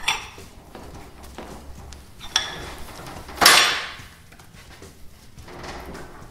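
Front fork leg of a KTM 65 SX being slid up by hand through the triple clamps: a few light metallic clicks, and about three and a half seconds in a short scraping slide, the loudest sound.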